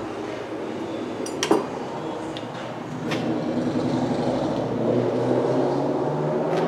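A steady mechanical drone that grows louder in the second half, with two sharp metallic clinks about one and a half and three seconds in.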